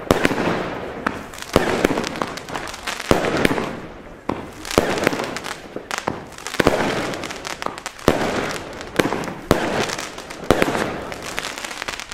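BLACKBOXX Level 1 compound firework cake firing shot after shot, a sharp bang about every second, each followed by a rush of noise that fades.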